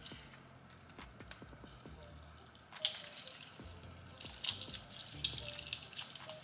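Plastic packaging rustling and crinkling as hands unwrap and handle small catch-can parts, with a few faint clicks at first and denser crackling from about three seconds in.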